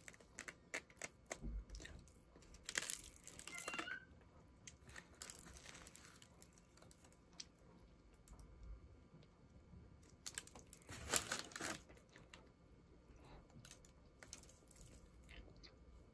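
Close-up eating sounds: faint clicks and about four bursts of crinkly, crackling crunching and chewing, the loudest near the end.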